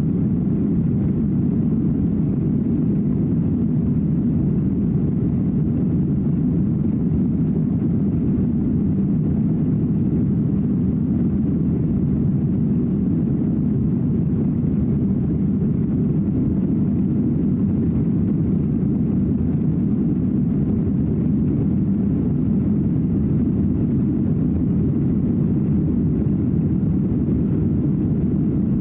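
Steady low drone inside the cabin of a Boeing 737-900 in flight: the engines and rushing air, even and unchanging throughout.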